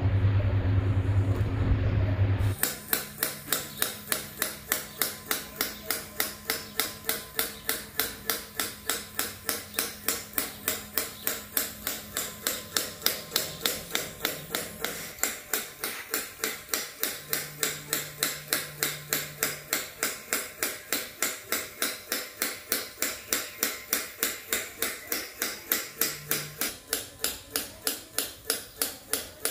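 A small motor humming steadily, which cuts off about two and a half seconds in. After it comes an even, rapid mechanical clicking, about three sharp clicks a second.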